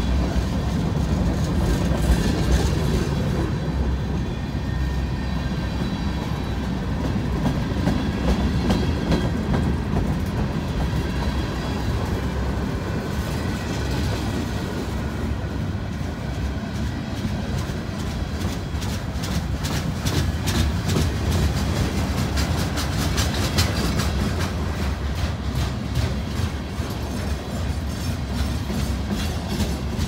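Freight cars of a mixed freight train (covered hoppers, lumber flatcars, boxcars) rolling steadily past: a continuous low rumble of steel wheels on rail with repeated clickety-clack over the rail joints. The clicking becomes more prominent about halfway through.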